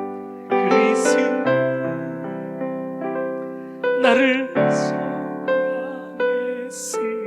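Piano playing a slow worship-song accompaniment: chords struck about once a second and left to ring and fade.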